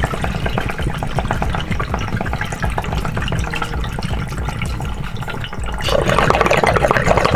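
Water bubbling in a glass water pipe as someone draws a long, steady inhale through it: a rapid stream of small gurgles that gets louder about six seconds in.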